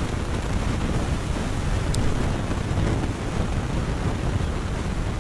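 Wind buffeting an outdoor camera microphone: a steady, gusting low rumble, with one faint click about two seconds in.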